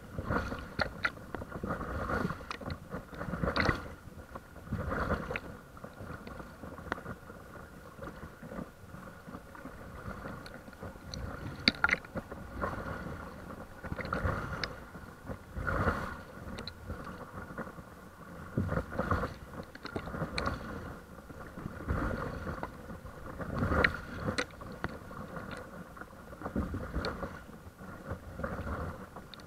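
Water splashing and slapping against the nose of a paddleboard as it is paddled along, in uneven bursts every second or two.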